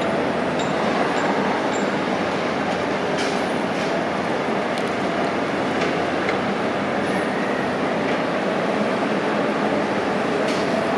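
Heavy construction machinery running steadily: a constant dense mechanical din with a faint steady whine underneath and a few light clicks.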